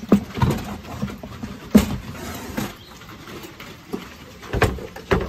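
A string of knocks and thumps from handling gear, the loudest about two seconds in, as a two-burner camp fuel stove is worked out of a packed cargo area.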